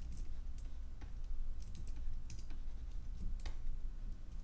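Computer keyboard keys clicking in scattered, irregular strokes over a low steady hum.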